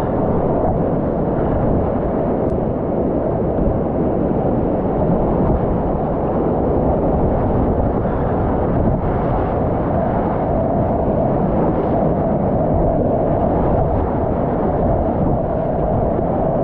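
Whitewater rapids rushing and breaking around a kayak, heard close up from the boat: a loud, steady roar of churning water.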